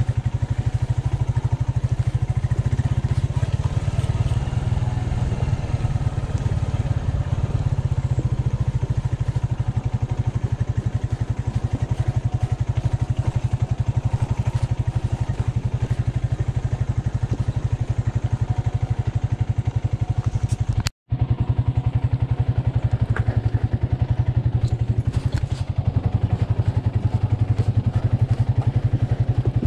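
Motorcycle engine running steadily while the bike is ridden over a rough, rocky dirt track. The sound cuts out for a split second about two-thirds of the way through.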